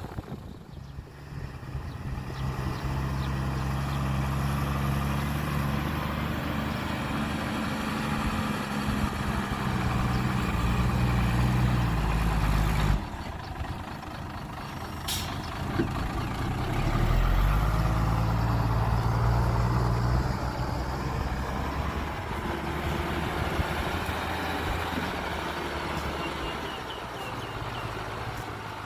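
Heavy truck engine running, its pitch shifting as the revs change. It drops away abruptly about 13 seconds in and builds again a few seconds later before slowly fading.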